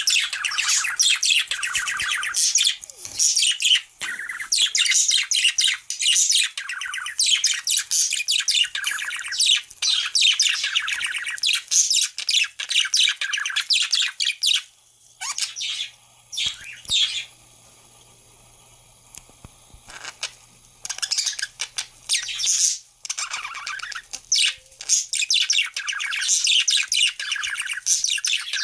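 Budgerigars chattering and warbling in fast, near-continuous runs, with a lull of a few seconds a little past the middle before the chatter resumes.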